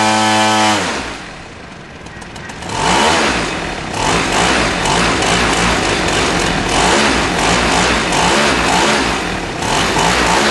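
Brand-new Zenoah G62 single-cylinder two-stroke model-airplane engine turning a 23x8 propeller during its break-in run. It holds a high note that falls away to idle about a second in, is opened up again about three seconds in, and runs at high speed, easing off briefly near the end.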